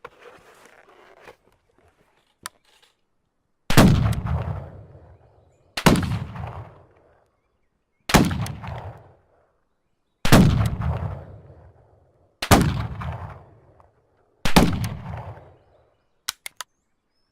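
Colt 1860 Army cap-and-ball revolver fired six times, about two seconds apart, each shot echoing away over a second or so. A few faint small clicks come before the first shot and just after the last.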